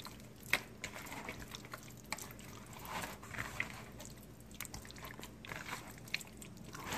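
Hands squishing raw chicken legs and chopped onion through barbecue sauce in a plastic bowl: faint, irregular wet squelches and smacks.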